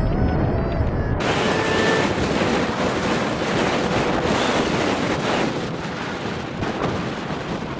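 Music for about the first second, then a cut to steady wind noise rushing on the microphone.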